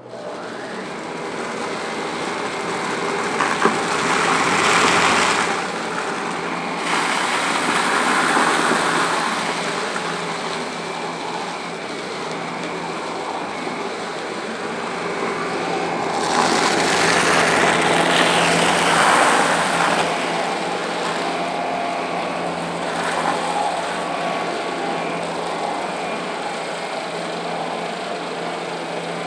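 Shark vacuum cleaner switched on and running over carpet, sucking up debris: a steady motor hum and whine with rushing air, swelling louder about four seconds in and again around the middle as it passes close.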